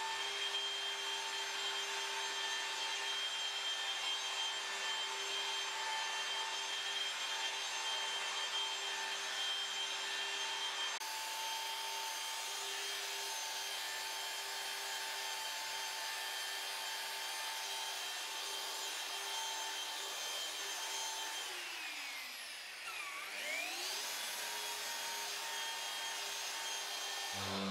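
Festool electric machine polisher running on car paint: a steady whine with a hiss. A little past two-thirds of the way in its pitch drops and then climbs back up.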